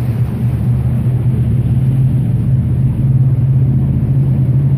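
Jet boat's engine running steadily with the boat under way on a river: a steady low drone over a rushing noise.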